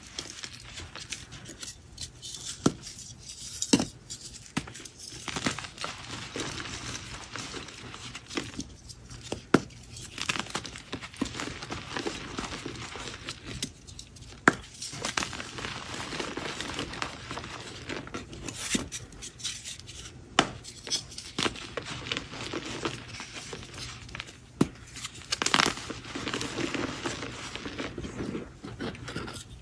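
Soft blocks of dyed gym chalk being crushed and crumbled by hand: a steady dry crunching and crumbling, broken by sharp snaps now and then as pieces break apart.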